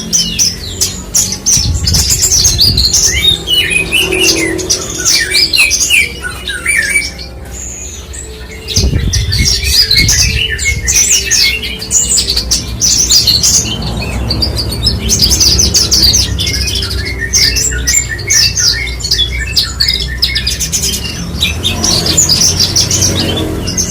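Branjangan (Javan bush lark) singing a long, fast run of chirps and trills, with a brief pause about seven seconds in.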